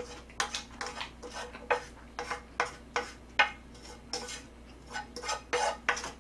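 Chopsticks clicking and scraping against a frying pan as noodles are scooped out of it: a string of short, irregular clicks, about two or three a second.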